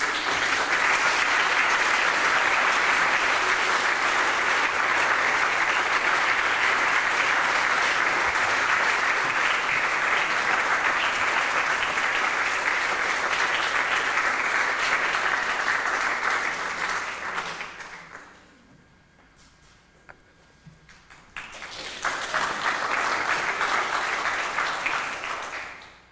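Audience applauding, a long round that dies away about two-thirds of the way through, then a second, shorter round that stops near the end.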